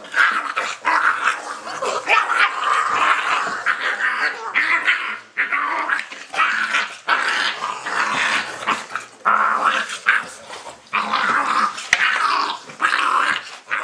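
Dogo Argentino puppies growling in a rapid string of short bursts as they play-fight around their mother.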